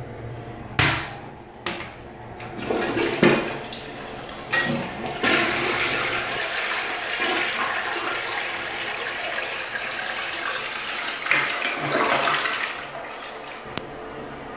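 HCG toilet flushing: two sharp clicks about a second in, then water gushes into the bowl and rushes steadily for about seven seconds before easing off near the end.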